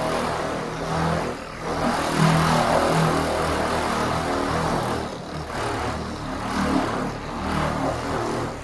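Electric car polisher running against painted bodywork, a steady motor hum with a rushing pad sound that swells and eases as the pressure changes, dipping briefly twice.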